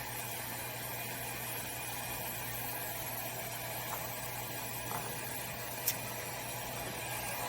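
Heat gun blowing steadily, a hiss over a low hum, warming vinyl wrap so its adhesive seals over cut air bubbles. A single sharp click about six seconds in.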